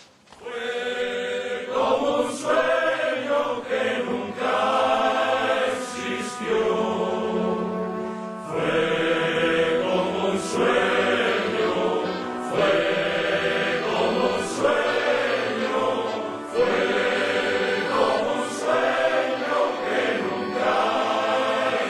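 A choir of men's voices singing a slow melody in long, held notes.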